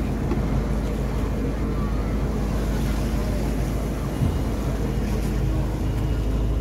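Fishing boat's engine running steadily, a low even drone. There is a single low thump about four seconds in.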